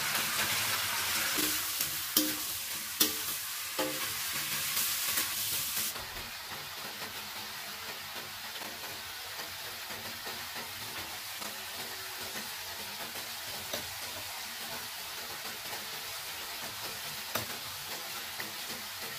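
Chicken and small potatoes sizzling as they fry in a pan, with a few sharp clicks in the first few seconds. About six seconds in, the sizzle drops to a quieter, steady frying.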